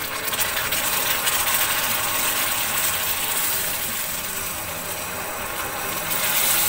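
Hot caramel of melted sugar and butter boiling up and crackling as cold cream is poured into it, a dense steady mass of fine pops and sizzling that grows louder near the end.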